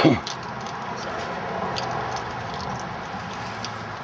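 Outdoor background noise with a few faint, scattered ticks from footsteps on dry grass and dirt. Right at the start there is a short, loud sound whose pitch drops quickly.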